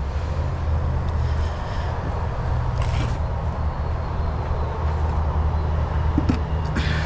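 Steady low mechanical hum over a noisy background, with a few faint knocks.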